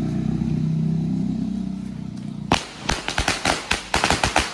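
A firecracker on a paved street going off in a rapid series of sharp cracks starting about two and a half seconds in, after a steady low hum.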